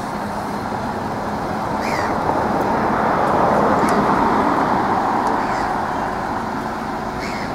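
A Neoplan touring coach's diesel engine running as the coach pulls slowly in close and draws to a halt; the sound swells to its loudest about halfway through, then eases.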